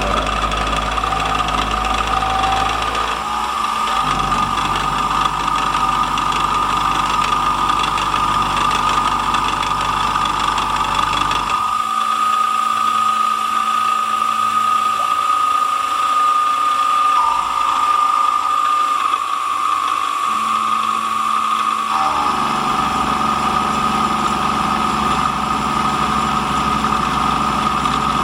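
Sieg SX2.7-based CNC mill with stepper motors, its 6 mm four-flute carbide end mill taking a near full-width cut 1 mm deep at 200 mm/min. A steady high machine tone runs throughout, while the lower motor tones shift abruptly several times as the axis moves change, about 4, 12 and 22 seconds in.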